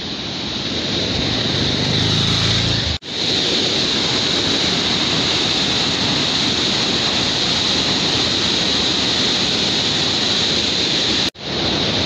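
Attukal waterfall's white water rushing steadily and loudly down its rocky channel, the sound dropping out abruptly for a moment about three seconds in and again near the end.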